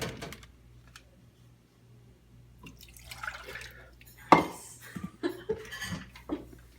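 Water poured into a pan, with clinks of glass and kitchenware and a sharp knock about four seconds in.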